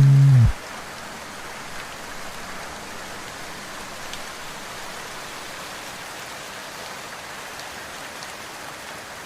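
Steady rain, an even hiss with no music over it. The last note of the song cuts off about half a second in.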